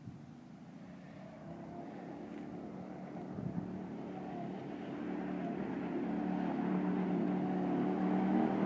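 Murray petrol go-kart's small engine running at a fairly steady pitch, growing steadily louder as the kart approaches.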